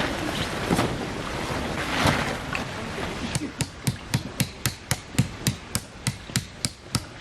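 Rustling with a couple of single knocks, then a quick run of sharp, even knocks, about four a second, starting a little under halfway through.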